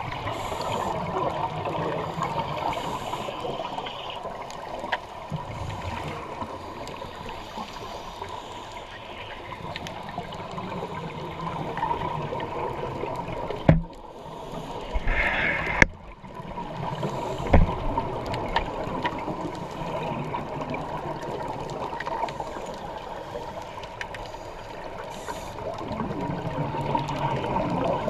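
Underwater sound of scuba divers' exhaust bubbles gurgling and rushing, swelling and ebbing, with a few dull knocks. It drops out briefly twice in the middle.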